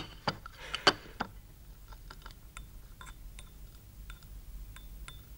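Teaspoon stirring coffee in a small china cup, clinking lightly and irregularly against its side, with a few sharper clinks in the first second.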